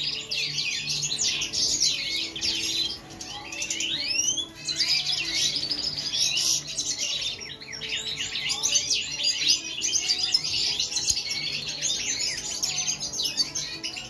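A flock of European goldfinches twittering and singing together: a dense, continuous chatter of high chirps, many of them rising in pitch.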